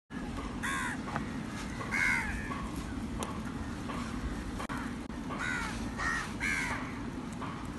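Crows cawing at a feeding flock, several harsh caws in two bouts, a couple near the start and three in quick succession about five and a half seconds in, over a steady low rumble.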